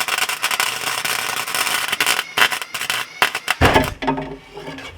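Welder arc crackling in short bursts while tack-welding thin roof sheet metal, the arc burning through the metal. About three and a half seconds in the crackling stops with a loud low thump, followed briefly by a voice.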